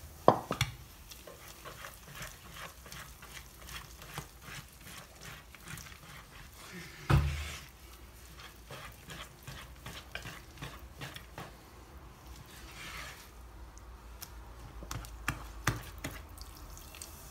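Wire whisk stirring and scraping a thick flour batter in a bowl, with irregular small clicks of the whisk on the bowl. A few louder knocks come near the start, about seven seconds in, and near the end.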